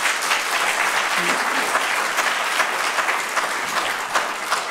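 Audience applause: many hands clapping together in a dense, even patter, easing off slightly near the end.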